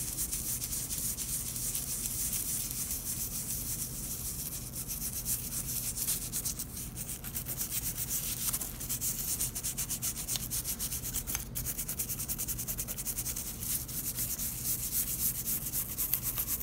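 Toothbrush bristles scrubbing a tarnished brass loom jack in small circles: a steady run of quick rasping strokes, working cleaner into the pits and corrosion to lift the tarnish.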